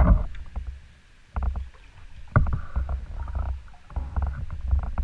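A canoe being paddled: water swishing and low rumbling in uneven swells, with a wooden paddle knocking against the hull, sharply right at the start and again about two and a half seconds in, and lighter ticks between.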